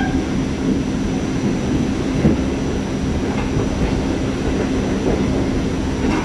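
Staten Island Railway R44 subway car running along the track: a steady rumble with wheels clicking over rail joints now and then, the plainest click about two seconds in.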